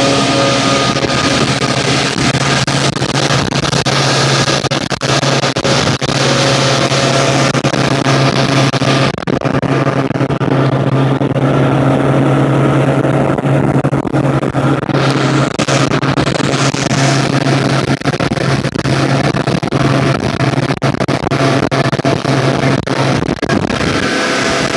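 Motorboat engine running at a steady pitch while under way, with rushing wind and water noise over it. Near the end the engine's low drone drops away.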